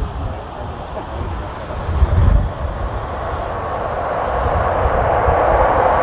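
Jet engines of a Boeing 767 on final approach, a steady rushing roar that grows louder over the last few seconds as the airliner nears. Gusty wind rumbles on the microphone underneath, with one strong buffet about two seconds in.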